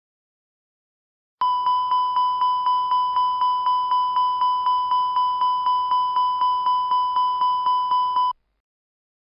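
Airbus A320 cockpit continuous repetitive chime, the aural alert that goes with a red master warning. A clear chime repeats about four times a second, starting about a second and a half in and stopping abruptly about seven seconds later.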